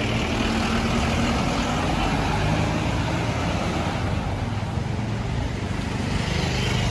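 Motorcycle engine running while riding through town traffic, its note shifting in pitch, over a steady wash of road and traffic noise.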